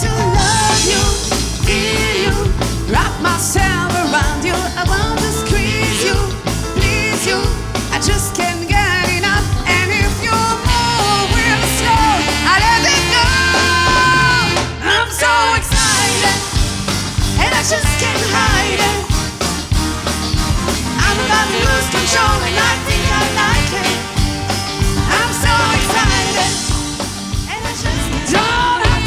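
A funk-disco band playing a danceable groove, with drums, funky bass and a melodic lead line over it. The bass and drums drop out for a beat about halfway, then the groove comes back in.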